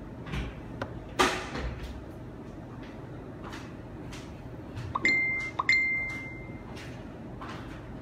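Samsung Galaxy A6+ phone playing a message notification chime twice, about half a second apart, a steady high tone, the second held for about a second. A short, sharp noise comes about a second in.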